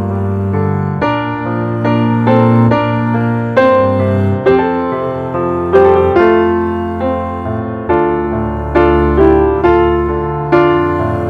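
Background piano music: a slow, gentle melody of struck notes over sustained chords.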